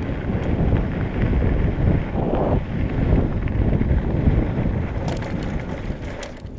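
Wind rushing over the microphone of a bike-mounted camera at downhill speed, mixed with the tyres rolling over dirt and gravel. A few sharp clicks and rattles come near the end.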